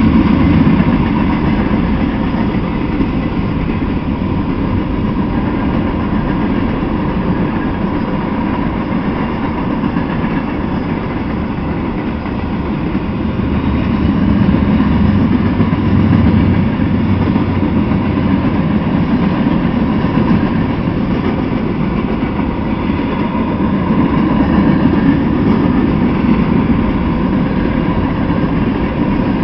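Freight cars rolling past on the rails, a steady loud rumble of wheels on track that swells a little about halfway through and again near the end.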